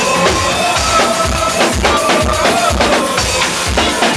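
Soca music playing loud, with a steady kick drum about twice a second under a melody line.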